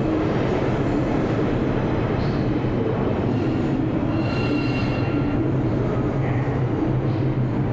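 New York City subway train running in the station: a steady, loud rumble with a low hum, and a faint high whine about four to five seconds in.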